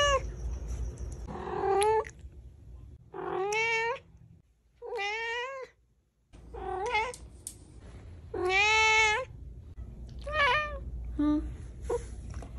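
A domestic cat meowing repeatedly: about seven meows with short pauses between them, each rising and then falling in pitch, the longest about two-thirds of the way through.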